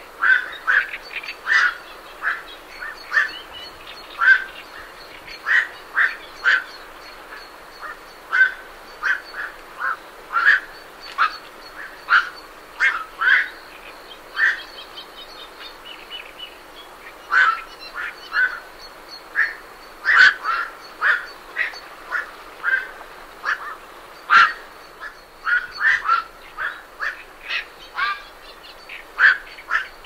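Black-crowned night herons calling as they leave their roost: short calls, one after another at irregular intervals and sometimes in quick runs, several birds at once. Behind them is a steady hiss from lake swell and a faint, steady high drone of cicadas and crickets.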